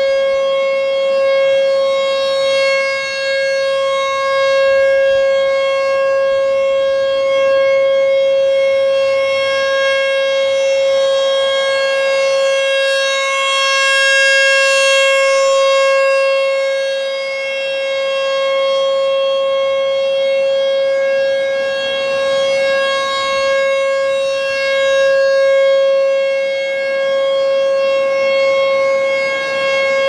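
ASC T-128 outdoor warning siren sounding a steady, unwavering tone for a routine test. Its rotating horn makes the sound swell and fade slowly, loudest about halfway through, when the horn faces the listener.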